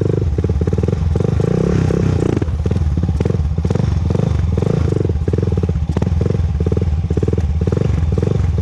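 Honda TRX400EX ATV's single-cylinder four-stroke engine running at low speed with a steady, even beat. No ticking noise can be heard: the earlier tick has been fixed.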